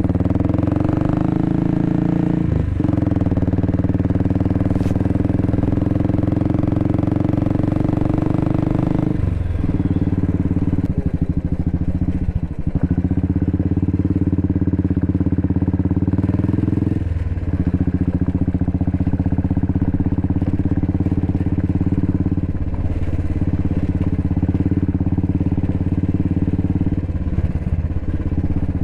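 Royal Enfield Bullet's single-cylinder engine running steadily while the bike is ridden, dipping briefly several times.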